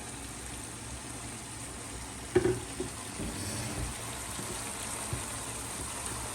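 Pot of braised peas with eggs simmering, a steady even hiss of bubbling and sizzling. A single sharp knock comes about two and a half seconds in.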